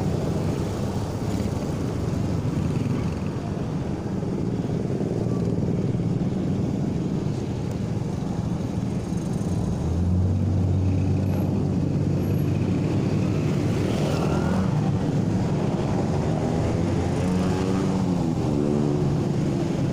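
Motorcycle engine and traffic noise heard from the rider's seat, a steady low rumble of engines and road noise. A steady low hum comes in about halfway through, with brief rising and falling engine tones near the end.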